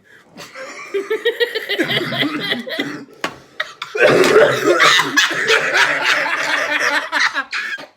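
People laughing hard in two rounds: the first starts just after the beginning, there is a short break about three seconds in, and a louder round follows to near the end.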